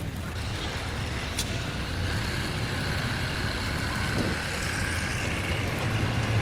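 Steady low mechanical rumble of running machinery.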